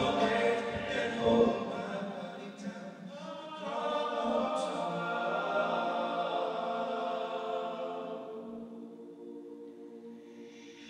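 Men's a cappella group singing in close harmony, with no instruments, settling onto a long held chord that fades away near the end as the song finishes.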